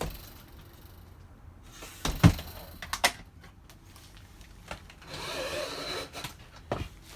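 Handling knocks inside a trailer: a heavy thump about two seconds in, a sharp click just after, then a few lighter clicks and a brief rustle near the end.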